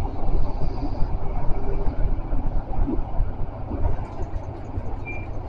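Tram running through a tunnel, heard from the driver's cab: a steady low rumble of wheels on rails and running gear. A brief high tone sounds about five seconds in.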